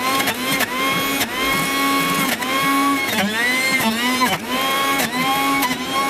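Sujata 900-watt juicer mixer grinder running as a juicer at high speed. Its motor whine dips in pitch and recovers every second or so as beetroot chunks are pushed down the feed chute onto the spinning cutter and load the motor.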